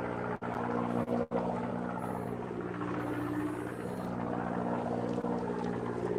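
Steady engine hum aboard a fishing boat: a low drone with several steady pitches, briefly cutting out twice in the first second and a half.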